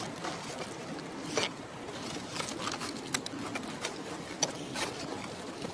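Scattered light clicks and rustles of dry leaf litter over a steady outdoor hiss, with a few sharper snaps about a second and a half in and again near four and five seconds.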